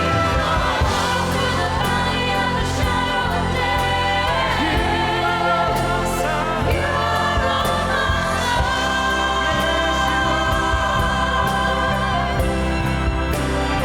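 Choir and orchestra playing a worship song, the choir singing over sustained chords.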